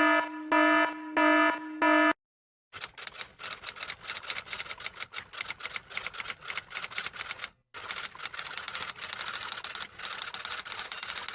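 Four short pitched electronic beeps, then after a brief pause a long, fast, irregular clatter of typing keys, broken once by a short gap.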